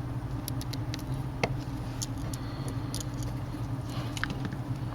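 Small scattered clicks and taps of a T6 screwdriver and tiny screws being fitted into a tablet's metal digitizer frame, the sharpest about one and a half seconds in, over a steady low hum.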